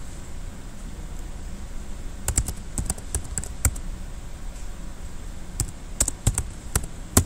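Typing on a computer keyboard: two short bursts of keystrokes, the first about two seconds in and the second near the end, over a steady low room hum.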